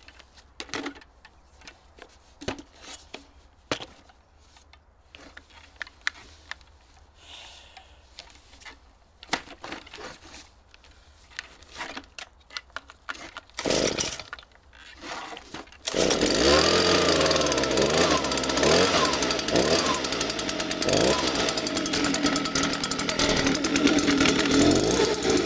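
Stihl BG 86 handheld leaf blower being started: scattered clicks and knocks of handling, a short louder burst, then about two-thirds of the way in its two-stroke engine catches and runs loudly, its speed wavering up and down.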